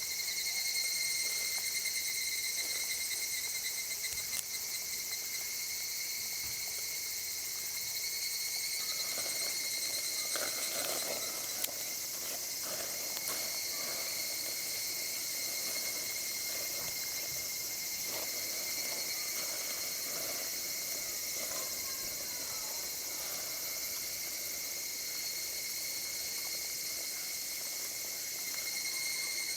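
Summer insects calling steadily in a continuous high-pitched chorus, with a few faint clicks.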